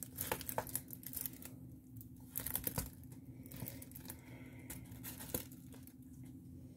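Plastic packaging crinkling and rustling as it is handled, in a few short bouts with sharp little clicks and quiet gaps between them.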